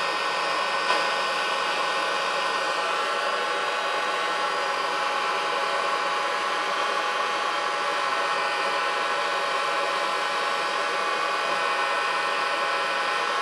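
Electric heat gun running steadily, its fan blowing with a steady whine, melting beeswax so it drips for filling a dent in a shoe. A single short tap about a second in.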